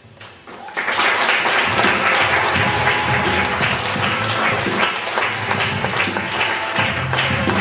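Upbeat music with a steady beat starts about a second in, mixed with applause.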